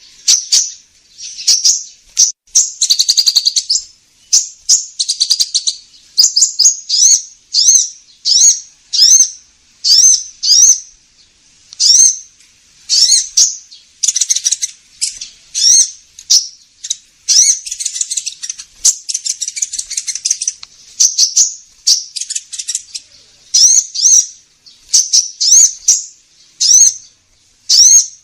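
Sunbird ('kolibri ninja') calls on a bird-lure recording: a rapid, continuous series of high, sharp chirps and short buzzy trills.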